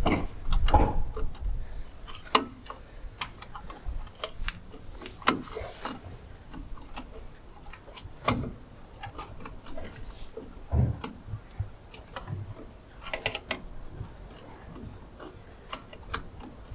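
Irregular clicks and light metallic knocks of tools and small parts being handled while dismantling a drum brake's springs and shoes.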